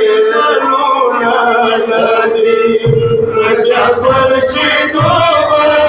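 Male voices chanting a Shia matam lament over a held drone note. From about halfway through, a deep beat lands every second or two.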